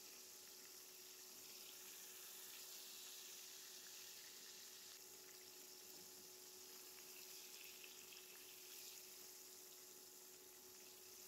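Faint, steady sizzling of food cooking in a pan, with small scattered crackles over a low steady hum.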